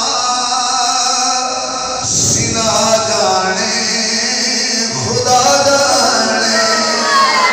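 A man singing lines of poetry unaccompanied into a microphone, in long held notes with short breaks between phrases.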